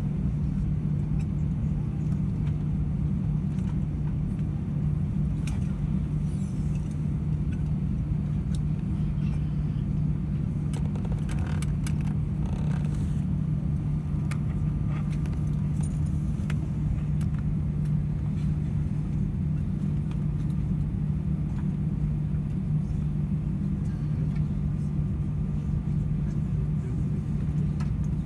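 Steady low cabin drone of an Airbus A320 on the ground with its IAE V2500 engines at idle, a constant hum under it. A few faint clicks and rattles come near the middle.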